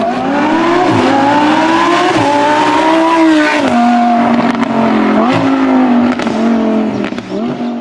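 Lamborghini Huracán LP610-4's V10 running through a Fi Exhaust valvetronic catback as the car accelerates, its note climbing and dipping several times, with a few short sharp pops. The sound begins to fade near the end.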